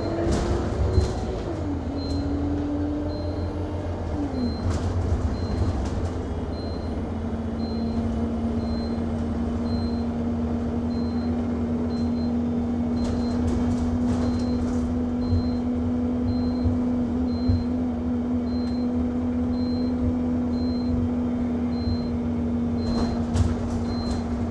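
Inside an Alexander Dennis Enviro200 MMC single-deck bus: a short high-pitched beep repeating about once a second without stopping, over the bus's steady engine hum and low road rumble. Brief rattles come now and then. The beep never lets up, and its cause is unknown to the rider.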